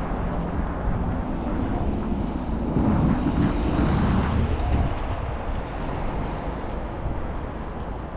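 Street traffic: steady road noise from passing cars, swelling as a vehicle goes by about three seconds in and fading again about two seconds later.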